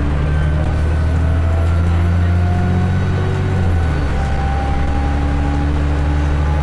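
ADL Enviro400 double-decker bus engine running with a steady low drone and a faint turbocharger whistle over it, the engine note changing about four seconds in.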